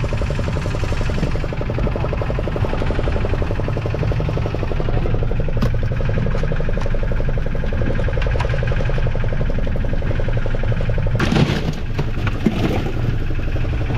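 Fishing boat's engine running steadily with a fast, even pulse, with a brief louder noise about eleven seconds in.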